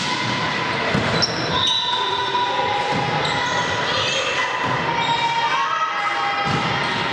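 A volleyball rally in a large, echoing sports hall: the ball is struck several times, about one to two seconds apart, over players' shoes squeaking on the wooden floor and voices calling out.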